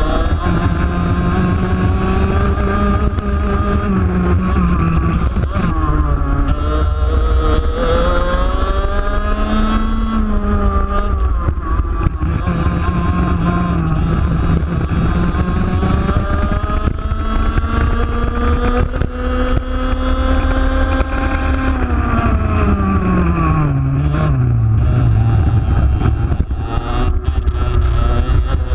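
Onboard sound of a 125cc two-stroke TaG racing kart engine at race pace, its pitch climbing on the straights and dropping each time the driver lifts for a corner, the longest, deepest drop about three-quarters of the way through before the revs climb again. A steady low rumble of wind and track runs underneath.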